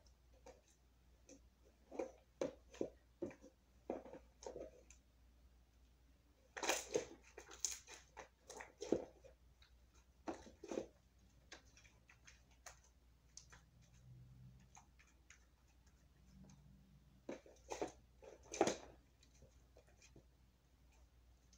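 Elmer's white glue slime, activated with Tide detergent, being squeezed and poked by hand in a plastic container: clusters of short squishy clicks and pops with quiet stretches between.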